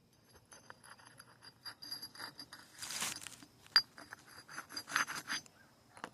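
Steel axe blade scraped against a piece of concrete to sharpen it: a run of gritty scrapes and small clinks, with one sharp click nearly four seconds in.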